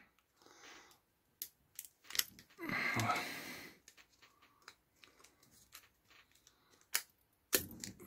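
Pliers gripping and prying at a hair dryer's tough plastic housing: a few sharp clicks, and a louder noise lasting about a second around three seconds in.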